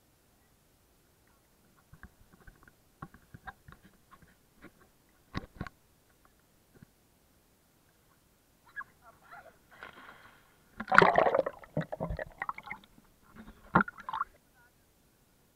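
Sea water sloshing and slapping around a stand-up paddleboard, with scattered knocks of the paddle and board, then a loud splash about two-thirds of the way in as a child falls off the board into the water, and another sharp splash shortly after.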